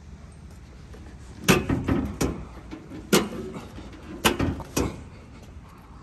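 A handful of sharp knocks and clunks, about six in three seconds, starting about a second and a half in.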